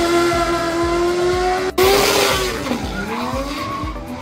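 Drift cars sliding at high revs, very loud, with tyres screeching. The engine note holds steady, then an abrupt cut about halfway through brings in a second car whose engine note dips and climbs back up.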